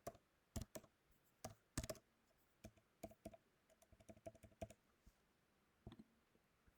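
Faint typing on a computer keyboard: irregular key clicks, with a quicker run of keystrokes a little past the middle.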